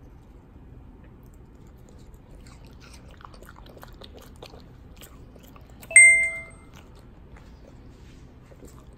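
French bulldog chewing watermelon, faint wet crunching and clicking for a few seconds. About six seconds in, a single bright bell-like ding rings and dies away quickly; it is the loudest sound.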